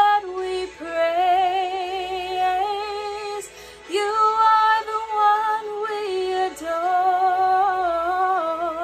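A young woman singing solo, holding long notes with a light vibrato, in phrases broken by short breaths about every three seconds.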